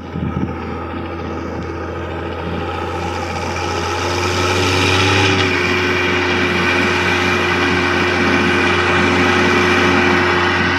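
Ursus tractor's diesel engine running steadily under load as it pulls a grain trailer, growing louder over the first few seconds as it draws near, then holding.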